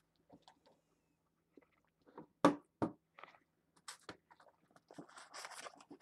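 Scattered faint clicks and small knocks, with two sharper clicks about two and a half seconds in and a soft rustle near the end.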